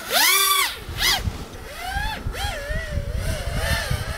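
FPV racing quadcopter's brushless motors spinning up sharply for takeoff, a high whine that swoops up and falls back. It then keeps changing in pitch as the throttle moves in flight, over a rough low rumble from about a second in.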